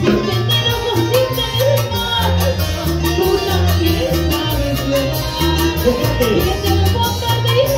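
A woman singing into a microphone over live Latin dance-band music: a steady beat with a repeating bass line and drum kit.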